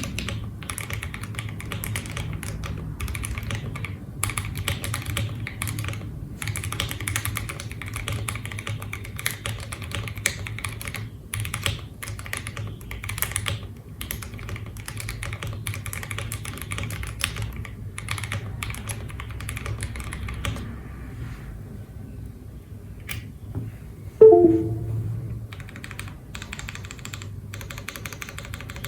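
Fast typing on an OwLab Voice65 mechanical keyboard with lubed Kon-momo 65g switches, a PE plate and cherry-profile keycaps: a dense run of key clicks, then a pause of a few seconds. A loud knock with a brief ringing tone that drops in pitch follows near the end, and typing starts up again after it.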